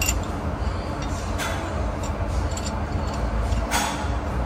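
A handful of separate light clicks and clinks, four or so spread over a few seconds, from hands and tools working on a car's steering wheel and column during its removal, over a steady low rumble.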